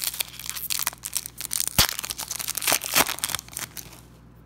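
A foil sticker-pack wrapper being torn open and crinkled by hand: a dense crackling with two sharper snaps, about two and three seconds in, dying away near the end.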